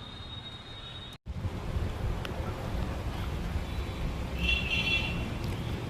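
Outdoor background rumble of wind on the microphone and road traffic, which cuts out for an instant about a second in and comes back louder. Roughly two-thirds through, a brief high-pitched call cuts in over it.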